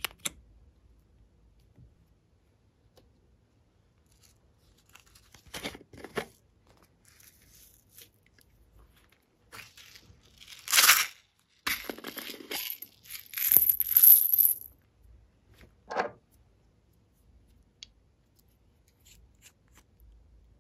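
Small plastic cosmetic containers handled by hand: a sharp click at the start, then plastic scraping and rustling, loudest twice in the middle as a screw-top jar is twisted open, with a short scrape after.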